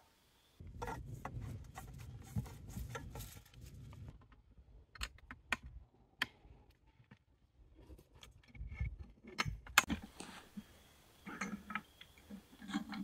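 Threaded steel well pipe being joined and tightened with pipe wrenches: irregular metallic clicks, knocks and scrapes of the wrench jaws and fittings on the pipe.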